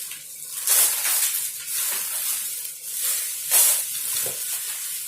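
Gift wrapping crinkling and rustling as a present is unwrapped, in a series of loud bursts, the strongest about a second in and again past three and a half seconds.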